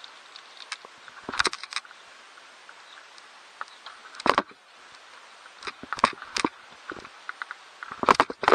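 Mountain bike being ridden: a steady hiss of tyres and wind, broken by sharp clunks and rattles from the bike going over bumps, with the loudest cluster near the end.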